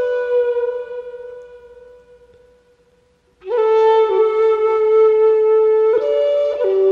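Background music carried by a flute-like wind instrument playing long held notes. A note dies away to near silence about halfway through, then the melody starts again with sustained notes.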